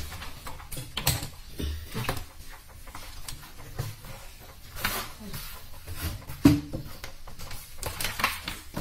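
Scattered light knocks, clicks and rustling from handling a CRT television set and its cables on a wooden workbench.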